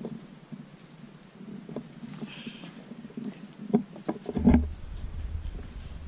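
Footsteps and scuffs on a gritty concrete floor, with a cluster of louder knocks about four seconds in, the loudest moment, followed by a low rumble.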